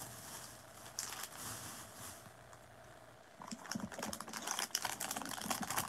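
Clear plastic packaging crinkling and rustling as it is handled, starting about halfway through as a busy run of small crackles.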